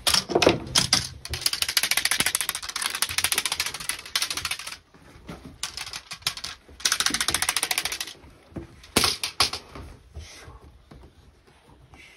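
Boxer puppy scrabbling its claws on wooden deck boards while tugging a toy: two spells of fast, even clattering, the first about three seconds long, with a few sharper knocks near the start and about nine seconds in.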